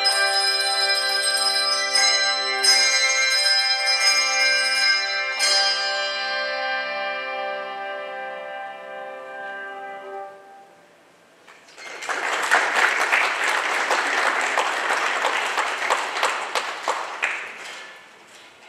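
Handbell choir ringing its closing chords, the bell tones sounding on and fading away over several seconds. After a short pause, about twelve seconds in, the congregation applauds for about five seconds.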